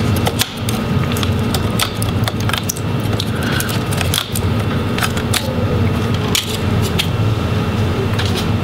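Small clicks and rattles of hand handling as a cooling fan is lifted out of a Dell Precision 5520 laptop's chassis, with scattered sharp ticks throughout, over a steady low hum.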